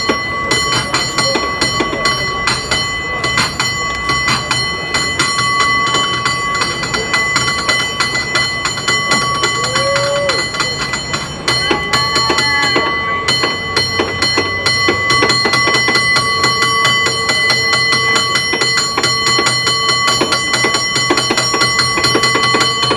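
A San Francisco cable car bell rung in a fast, rhythmic competition routine: rapid, closely spaced strikes over a steady ringing tone.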